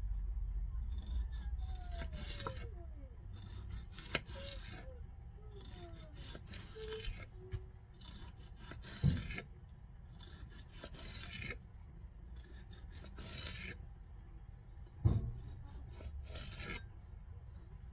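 Small kitchen knife sawing through tomatoes on a plastic cutting board: repeated rasping strokes as the blade cuts through the skin and flesh, with three sharp knocks of the blade meeting the board.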